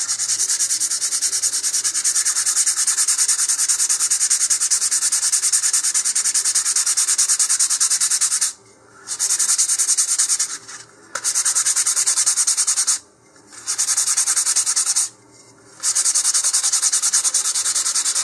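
Sandpaper rubbed quickly back and forth by hand over a rocket's motor mount tube, roughening its glossy surface so epoxy will stick. The rubbing stops briefly four times.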